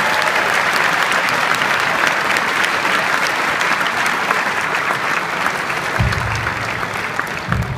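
Audience applauding, many people clapping steadily, the applause slowly thinning toward the end. Two low thumps near the end.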